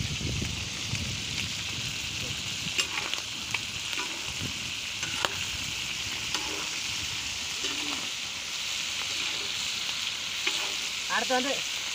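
Chicken and freshly added sliced onions sizzling in oil on a large iron tawa over a wood fire, a steady frying hiss, while a metal spatula scrapes and taps against the pan now and then.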